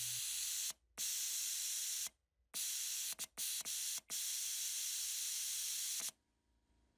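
Compressed air hissing steadily from the ABH-1A device's pneumatic air line, cutting off abruptly several times and stopping about six seconds in.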